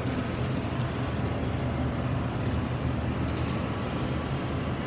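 Steady low hum of a supermarket's refrigerated display case and store air handling, with a few faint light clicks.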